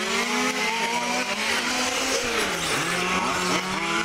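Brushless electric motor of a 1/5-scale Red Cat Rampage XBE buggy running on a 6S battery, its whine rising and falling with the throttle. The pitch drops about two and a half seconds in and then climbs again.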